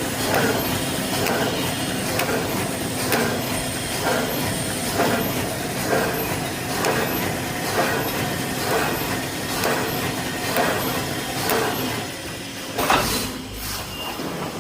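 Automatic welded-mesh panel welding machine running through its cycle, with a regular clank about every half second to second as the welding head presses down and the mesh is drawn forward. The rhythm stops at about 12 seconds, followed by one louder knock.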